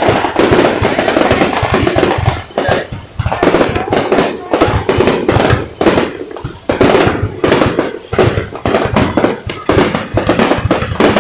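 A fireworks display going off: a continuous, rapid run of loud bangs and crackling pops, with short lulls in between.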